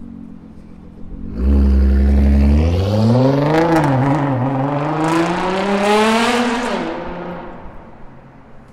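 Nissan GT-R R35's twin-turbo V6 through a Fi aftermarket exhaust, running low at first, then suddenly loud as the car accelerates hard. The revs climb, dip briefly about four seconds in like a gear change, climb again, then drop in pitch and fade as the car passes.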